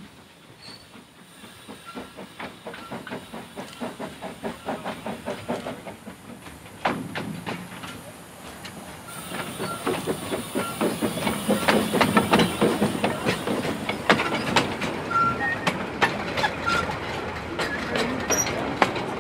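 Narrow-gauge steam locomotive approaching and running past, with a steady rhythm of exhaust beats and a hiss of steam that grow louder as it nears and are loudest about two thirds of the way through. Then the clicking of the open coaches' wheels over the rail joints as the train goes by.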